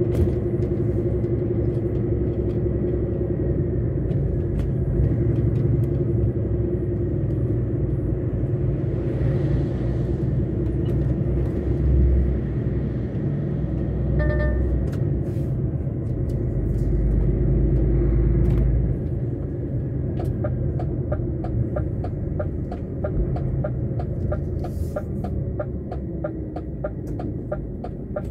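Truck engine running with road rumble, heard from inside the cab while driving. There is a short beep about halfway. From about two-thirds of the way through, an even ticking of about two to three a second sets in, typical of a turn indicator as the truck nears a junction.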